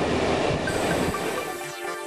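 Passenger train rolling along the track, a steady rumble that fades about halfway through as background music comes in.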